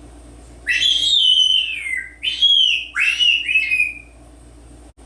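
African grey parrot whistling: three loud phrases of gliding, mostly falling notes with short gaps between them.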